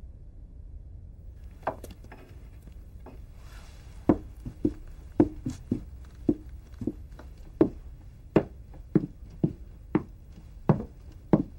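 Footsteps of hard-soled shoes on a hard floor at a steady walking pace, a little under two steps a second, starting about two seconds in.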